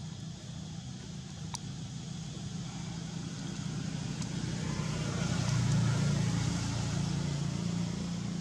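A motor vehicle's engine running, a low hum that grows louder about five seconds in and eases off toward the end, as if passing by.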